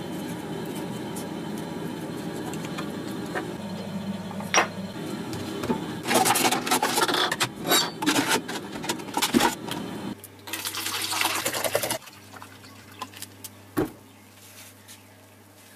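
A plastic bottle is handled and liquid is poured into it. There are a few seconds of irregular clattering, crinkling and splashing, then a steady pour of about two seconds.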